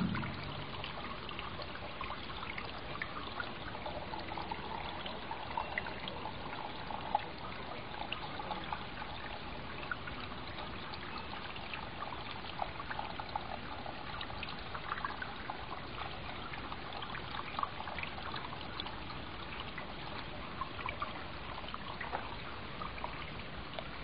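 Water from a small tabletop rock fountain trickling and splashing steadily onto pebbles and into its basin, with scattered small drip splashes.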